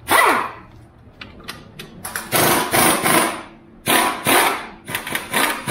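Impact gun rattling in repeated short bursts on the top nut of a Subaru Impreza strut, whose coil spring is held compressed by spring compressors: the nut is stubborn and being worked loose.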